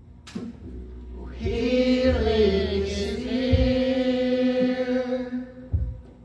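Worship singing: a voice, possibly with others, holds long notes that dip and rise once, starting about a second in and fading near the end, with a few low thumps around it.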